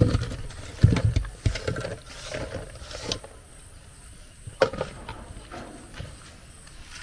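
Irregular knocks and scrapes, with a few louder thuds about a second in and again a little past the middle.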